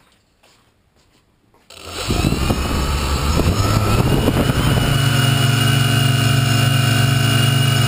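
Quadcopter's four 1250 kV brushless motors with 9x5 propellers starting up about two seconds in, spinning up with a rough rumble, then settling at about five seconds into a steady hum with a high whine as the craft lifts off. Heard loud and close from a GoPro mounted on the drone's own frame.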